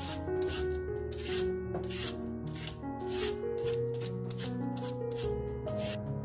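Vegetable peeler scraping the skin off a raw lotus root in short, repeated strokes, about two a second, over background music with a melody.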